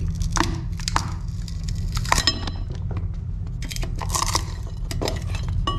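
Old fiberglass layup and rotten wood cracking and crunching as they are pried and torn out with a hand tool, with scattered sharp knocks and a brief metallic clink about two seconds in. A steady low hum runs underneath.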